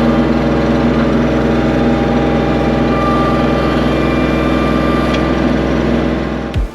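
An engine running steadily at an even speed, with a low, constant hum. Just before the end it cuts to music with a thumping beat.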